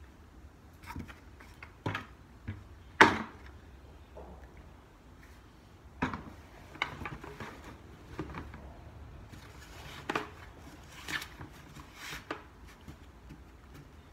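Plastic five-gallon buckets being handled and knocked together as a pillowcase-lined bucket with holes drilled in its bottom is set into another bucket. There is one sharp knock about three seconds in, then scattered lighter knocks and handling noises.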